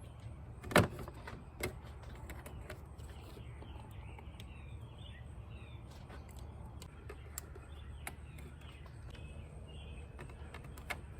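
Plastic engine-bay cover and its clips being refitted by hand: one sharp click about a second in, then a few lighter clicks and taps, over a steady low hum with faint bird chirps in the middle.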